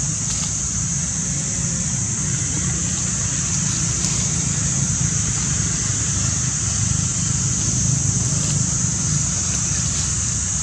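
Steady outdoor background: a constant high-pitched buzz over a low rumble, with no monkey calls heard.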